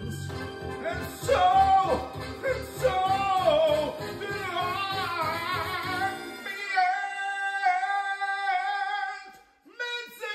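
A solo voice singing a melody over a backing track with a pulsing bass. About six and a half seconds in, the bass drops out and the voice holds one long note for about two and a half seconds before it fades.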